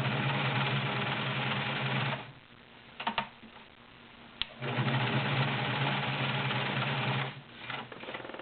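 Belt-driven Kenmore 1316 all-metal sewing machine stitching through five layers of denim with a size 16 needle, in two steady runs of about two and three seconds. A few sharp clicks fall in the pause between the runs.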